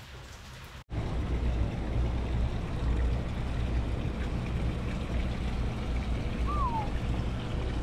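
A steady low rumble with hiss, typical of a marina dock heard through a handheld camera's microphone, starting abruptly about a second in after a moment of quiet room tone. A short falling chirp sounds near the end.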